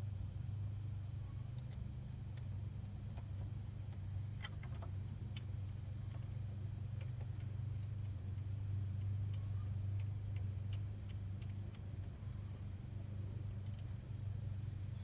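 Scattered light metallic clicks and taps of hand tools and parts during throttle body installation, over a steady low hum.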